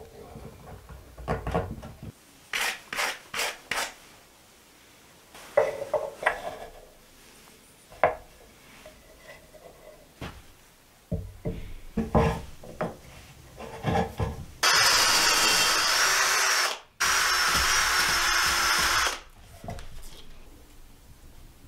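Small wooden pieces knocked and set down on a wooden tabletop with scattered clicks, then an electric drill runs for about four seconds, boring into wood, with a brief stop in the middle.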